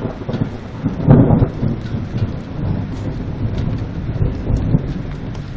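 Thunder rumbling, with a louder peal about a second in that fades away over the next few seconds, over a steady hiss of rain.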